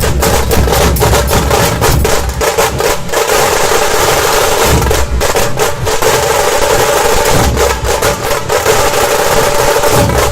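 Puneri dhol-tasha ensemble playing loudly: fast, continuous tasha drum rolls over deep dhol beats that come in every few seconds.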